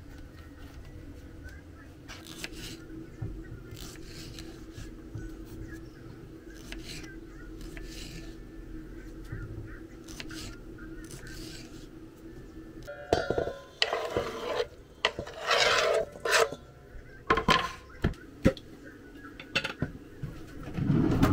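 Kitchen dishes and utensils scraping and clinking over a steady low hum, turning to louder, irregular knocks and clatter in the last third.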